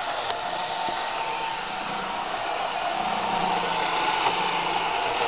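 Roomba robot vacuum running: a steady whir with a faint low hum, and a single small click near the start.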